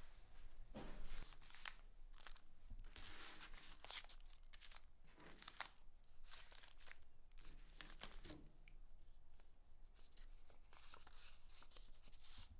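An envelope being torn open and handled, with paper rustling as a card is slid out: a string of short, irregular tearing and crinkling sounds, and a soft bump about a second in.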